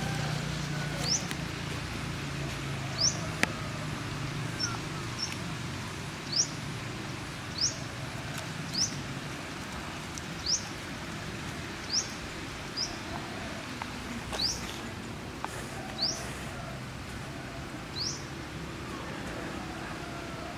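A bird repeating a short, sharp, high chirp every second or two, over a steady outdoor background.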